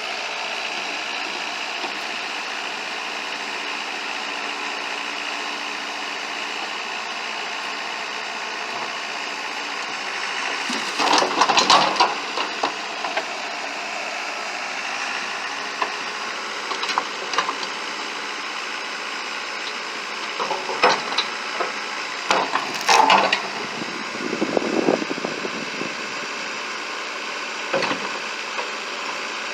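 Allis-Chalmers 715C backhoe running steadily, with several short bursts of cracking and clatter as it works, the loudest about a third of the way in and again around three-quarters of the way through.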